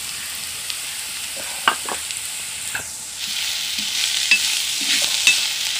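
Chopped onions and green chillies frying in coconut oil in an iron pan, sizzling steadily, with short clicks of a metal spoon against the pan as it stirs. The sizzle grows louder about three seconds in.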